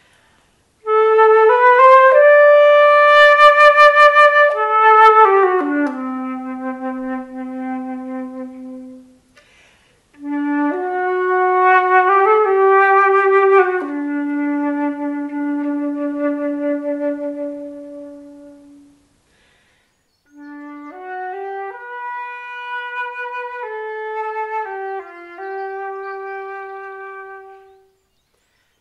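Background music: a solo flute playing a slow melody of held notes in three phrases, with a short silence between each phrase.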